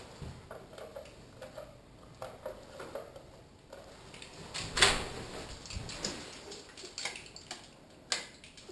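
Handling at a hotel room door with a card lock: soft rustling and small clicks, a sharp click about five seconds in, then the latch and door opening near the end.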